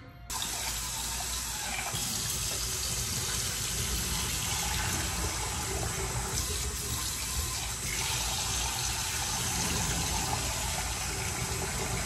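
Kitchen tap running steadily into the sink while a cooking pot is rinsed out under it; the water comes on sharply just after the start.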